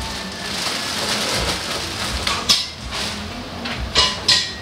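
Plastic packaging rustling and crinkling as keyboard accessories are unpacked, with a few sharp crackles about two and a half seconds in and again near the end.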